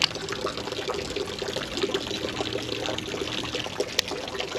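Creek water trickling and splashing steadily down a channel, with a single sharp click about four seconds in.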